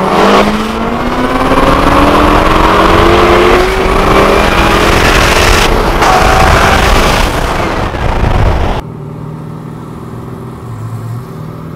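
Two modified C6 Corvette V8s at full throttle side by side, loud, the engine pitch climbing steadily with two brief breaks at gear changes, about three and a half and about six seconds in. About nine seconds in it cuts abruptly to a much quieter, steady engine drone inside the car.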